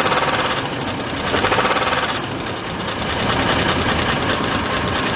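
A 2000 Chevy Suburban's V8 engine running with a rapid ticking knock, swelling in loudness as it is lightly revved. The mechanic takes the knock for a loose or faulty flywheel rather than an internal engine fault.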